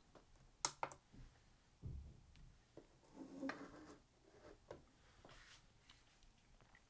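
Near silence with faint handling sounds from a small plastic tripod grip: a few short clicks about a second in, then soft rustles.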